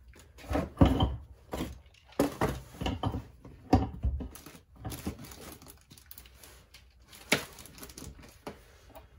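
Irregular clinks, knocks and scrapes of hand tools and small metal parts being handled on a motorcycle engine case.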